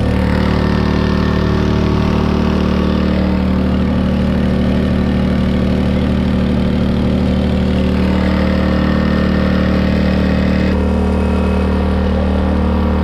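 Small outboard motor on a mini motorboat running steadily at speed, with water rushing and spraying in the wake.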